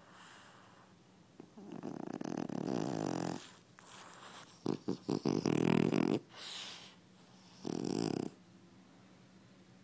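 French bulldog snoring: a rasping snore every few seconds with quiet gaps between breaths, the loudest about halfway through.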